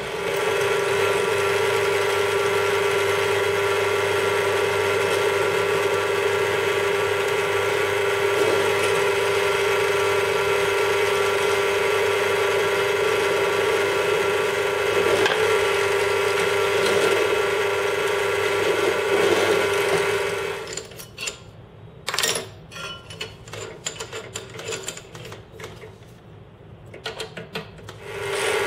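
Bench drill press motor running steadily while its bit bores into a melamine-faced chipboard panel. About twenty seconds in the motor stops, and scattered clicks and knocks follow as the chuck is handled; the motor starts again at the very end.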